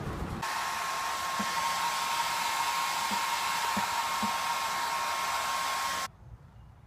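A steady, blower-like rushing noise with a thin high whine through it, starting abruptly and cutting off suddenly about six seconds in.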